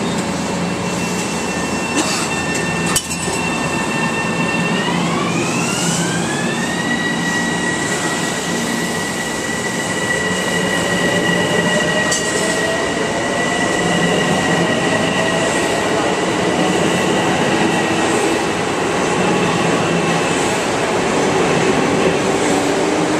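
Bombardier M7A electric train pulling out of the station: its motors whine, gliding up in pitch in steps as it picks up speed, over the steady rumble of the cars rolling past. A sharp click comes about three seconds in.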